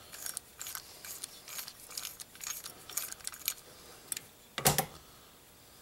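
A socket wrench clicking and clinking as it unscrews the metering jet from the bottom half of an updraft tractor carburetor, with a quick run of irregular small clicks, then one louder clunk about four and a half seconds in.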